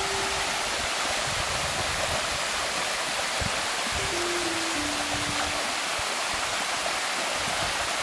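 Steady rush of shallow water running down a limestone cascade. A few soft notes of background music step downward near the start and again about four seconds in.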